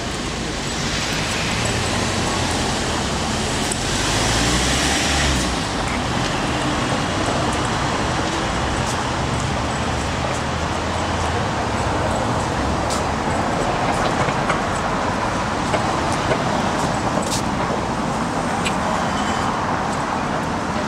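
City street traffic: a steady hum of cars running, with one louder vehicle going by, swelling and fading in the first few seconds.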